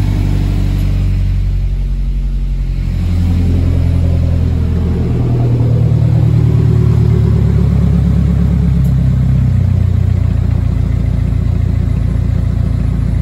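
2022 Subaru WRX's turbocharged 2.4-litre flat-four idling cold through a full ETS turbo-back exhaust and quad tips, louder from about three seconds in.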